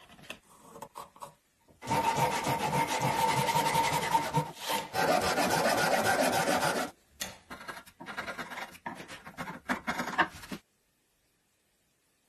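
A hand tool cutting into a clamped wooden block: about five seconds of quick, continuous rasping strokes, then lighter, scattered scrapes and taps.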